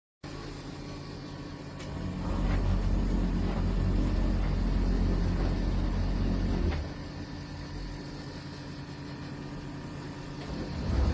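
LG RH80T2AP6RM condenser tumble dryer running: a steady low hum and rumble with a few faint knocks. It grows louder about two seconds in and drops back again a few seconds later.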